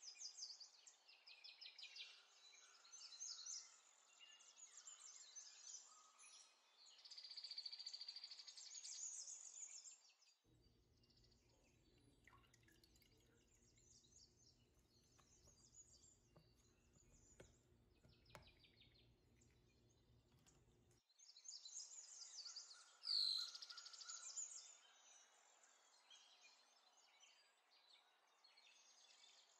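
Near silence with faint songbirds chirping and trilling in the background. They stop for about ten seconds in the middle, when only a faint low hum and a few clicks are left, and then they start again.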